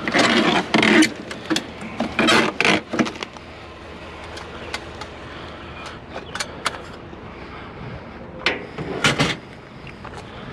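Stack of thin sheet-metal pieces rattling and clanking as it is pulled from the pile and carried, with bursts of clatter in the first three seconds and again near the end.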